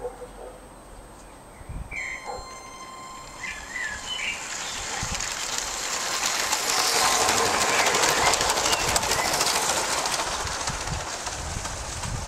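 A LEGO model train running past on plastic track, the clatter of its wheels over the rail joints swelling as it comes close and then easing off. A thin electric whine is heard briefly about two seconds in.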